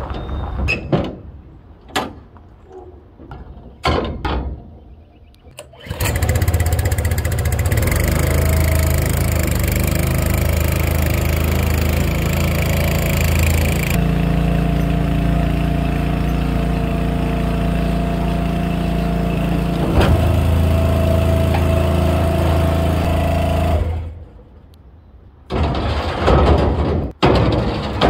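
Gas engine of a 6-inch Wallenstein wood chipper on a tracked carrier, running steadily as the machine drives along on its tracks. Irregular knocks and clunks come before the engine sound starts about six seconds in, and the sound drops off shortly before the end.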